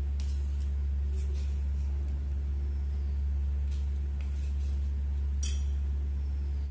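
A steady low hum runs underneath a few light clinks of a steel spoon against a steel plate as grated raw mango is scooped out.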